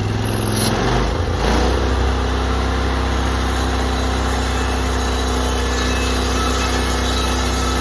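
Portable sawmill engine throttling up over the first second or two, then running steady at speed.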